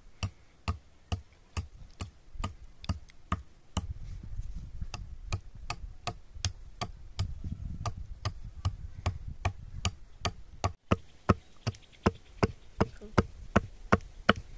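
A long run of sharp, evenly spaced knocks, about two to three a second, coming a little faster in the last few seconds.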